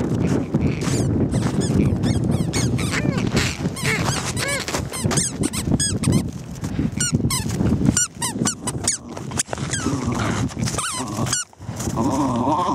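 A rubber squeaky dog toy squeaking in quick repeated squeals as a terrier bites down on it while carrying it. Crunching steps on hard-packed snow and low wind rumble on the microphone run underneath.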